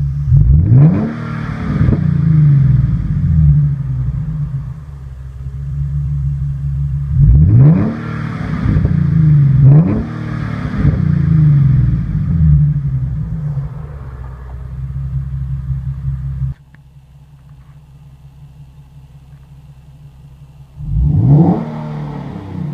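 Nissan 370Z's V6 running through a track-spec dual catback exhaust: a steady idle with sharp throttle blips that rise and fall back to idle, once near the start, twice in the middle and a smaller one after. About three-quarters of the way through the sound drops to a much quieter idle heard from inside the cabin, and one more rev comes near the end.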